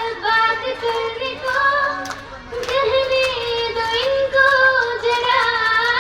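A young woman's voice singing a slow melody on long held notes that slide between pitches.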